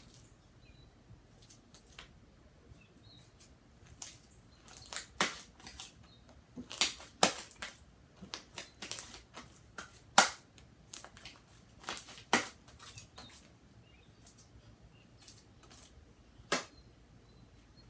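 Shaving-cream slime being mixed and worked while it is still being activated, giving sharp, irregular pops and clicks, thickest in the middle of the stretch.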